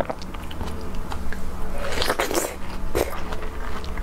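Close-miked eating sounds of a person biting and chewing a fresh strawberry, with louder moments about two and three seconds in.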